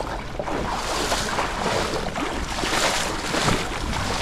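River water sloshing and splashing in surges about once a second.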